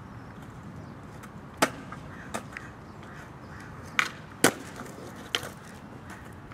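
Skateboard on concrete: a few sharp clacks of the board, then a tail pop about four seconds in followed half a second later by the loudest crack as the board comes down.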